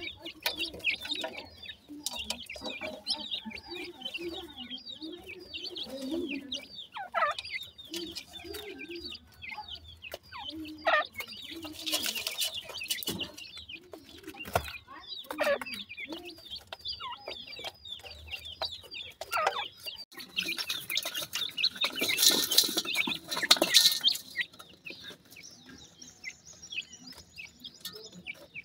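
Young francolin chicks keep up a steady stream of short, high peeping chirps while they feed, with rustling and scratching of dry soil as they peck through it. The rustling is loudest about three-quarters of the way through.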